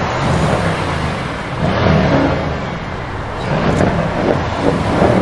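Car engines running and revving, the engine noise rising and falling in several swells.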